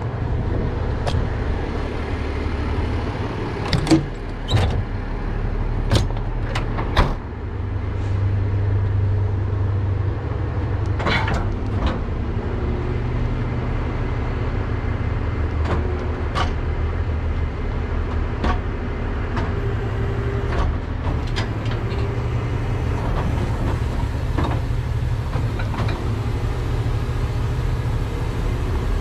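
Tow truck's engine idling steadily while the wheel-lift gear is handled. Several sharp metal clanks and knocks come between about 4 and 7 seconds in, and lighter clicks follow now and then.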